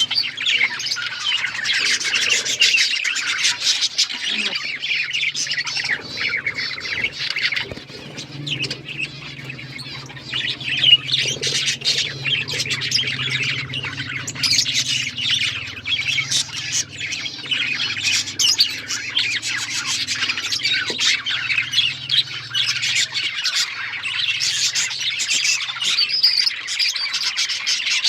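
A group of pet budgerigars chirping and chattering continuously, many short calls overlapping.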